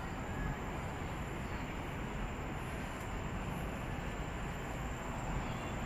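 Steady outdoor background noise, an even hiss with a low rumble and no distinct sounds standing out.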